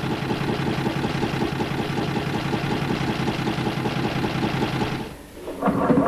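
Vintage car engine running with a rapid, even beat, cutting off abruptly about five seconds in. A short louder sound follows near the end.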